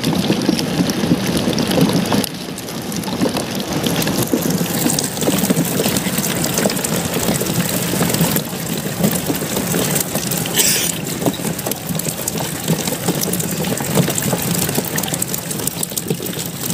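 A mass of live fish flapping and thrashing on the floor of a shallow plastic tub, a dense, steady crackle of wet slaps and splashes. A steady low hum runs underneath.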